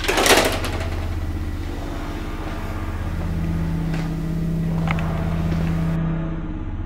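A steady low droning hum, with a brief loud rush of noise just after the start. A second, higher steady tone joins for a few seconds in the middle, along with a couple of faint clicks.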